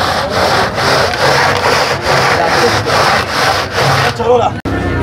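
Metal sheer-yakh pot twisted back and forth by hand in its bed of crushed ice, rasping against the ice in even strokes about three a second, as the ice cream is churned. It cuts off suddenly a little before the end.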